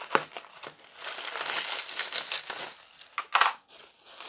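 Plastic bubble wrap crinkling and rustling as hands pull it open, with a louder crinkle about three seconds in.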